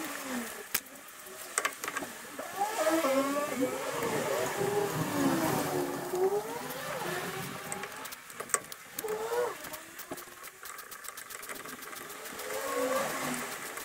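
Hand tools clinking and clicking against metal while working at a truck's front brake hub, with a quick run of clicks near the end. A louder wavering pitched sound rises and falls over the middle of the stretch and again near the end.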